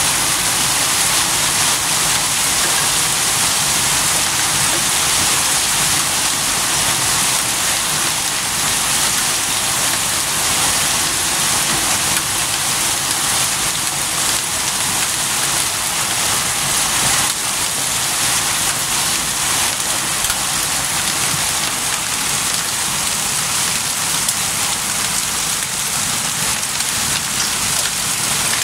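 Heavy hail pelting paving and a garden: a dense, steady patter of countless hailstones striking the ground.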